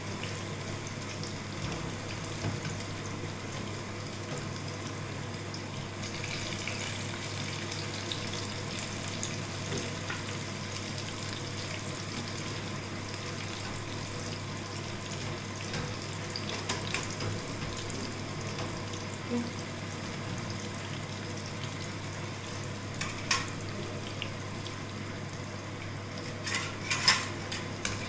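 Batter-coated green chillies (mirchi bajji) sizzling steadily as they deep-fry in hot oil on their second frying, with a few sharp knocks near the end.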